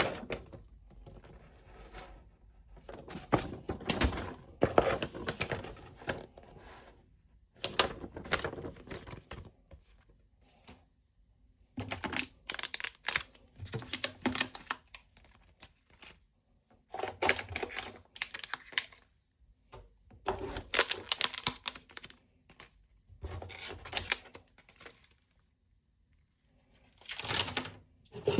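Hands handling objects: bursts of clicking, rustling and crinkling, each a second or two long, with short quiet gaps between them.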